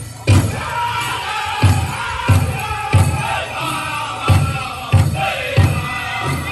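Powwow drum group singing a chicken dance song over a big drum struck in a steady beat, about three strokes every two seconds, with dancers' bells jingling.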